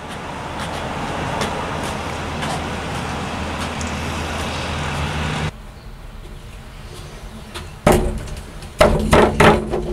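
City street traffic noise, which cuts off suddenly about five and a half seconds in. Then comes one sharp knock and, a second later, three quick loud bangs as a phone booth's door is pushed and worked open.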